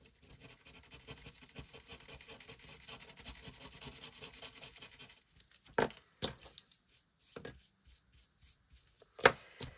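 Rapid rubbing and scratching on paper for about five seconds, then a few light, separate knocks.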